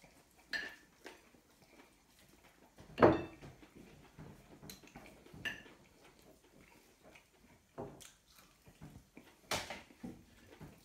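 A man eating fried chicken wings with his hands: scattered wet mouth and chewing sounds, with bones and wings clicking and knocking on a ceramic plate. The loudest knock comes about three seconds in.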